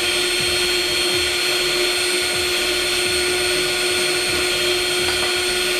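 Electric stand mixer running at a steady speed with a constant motor whine, its beaters whisking beaten egg whites and yolks into a yellow cream.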